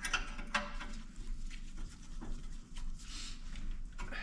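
Faint scrapes and a few light clicks of small metal parts being handled, over a steady low hum.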